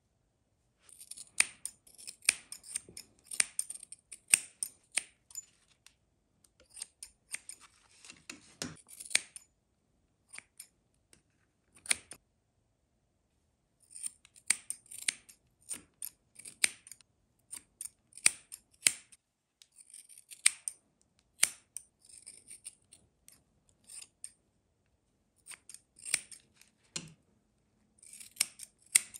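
Steel scissors snipping through a doll's hair: runs of quick, sharp snips, with a silent pause of a few seconds about a third of the way through.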